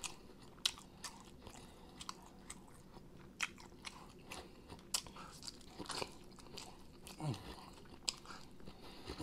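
Close-miked eating of a sauced whole chicken wing: biting, tearing meat off the bone and chewing, heard as irregular sloppy smacks, crunches and clicks, a few each second.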